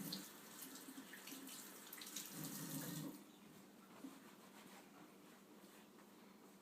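Water running from a sink tap while hands are washed under it; the flow stops about three seconds in.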